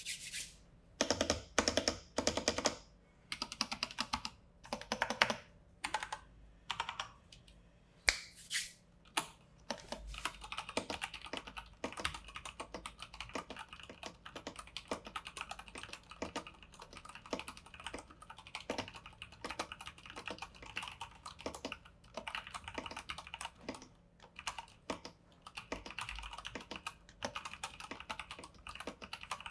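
Typing on a stock, unmodified IQUNIX mechanical keyboard with Cherry MX Brown tactile switches. For the first several seconds there are short separate bursts of key presses. From about ten seconds in it becomes continuous, fast typing.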